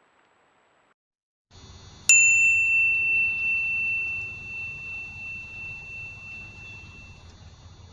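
A single sharp metallic strike that rings on with a clear high tone like a struck bell, fading out over about five seconds, over a steady faint background hiss.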